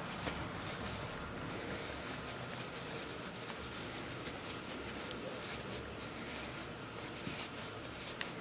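Soft rustling and scratchy rubbing as hands pull apart wads of fiberfill stuffing and push them into a sewn fabric toy body, with light irregular scratches.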